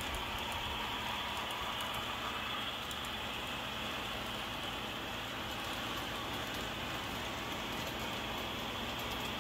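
Model train running on the layout track: a steady rolling rattle of wheels and motor, with faint light clicking from the wheels on the rails.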